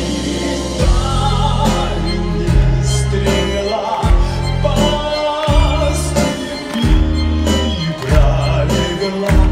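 Live orchestra with a strong bass and a steady beat, a little over one beat a second, and a man singing over it.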